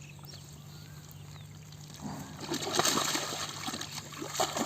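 Water splashing and sloshing around a buffalo being washed, quiet at first and then busier from about two seconds in, over a steady low hum.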